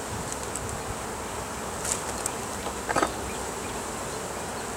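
Honeybees buzzing steadily around an open hive as its wooden frames are pried up and lifted, with a few light clicks about two seconds in and a short knock about three seconds in.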